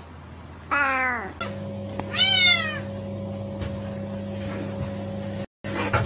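Cats meowing twice: a falling meow about a second in, then a louder meow that rises and falls about two seconds in, over a steady low hum.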